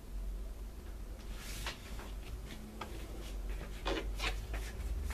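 Crinkling and rustling of a rhubarb tart's shiny red wrapping as it is handled and set down: a string of short scrapes and crackles, thickest about four seconds in, over a steady low hum.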